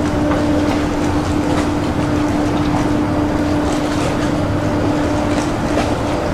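A large cruise ship's machinery hums steadily with a constant low tone and a wash of noise while the ship is mooring.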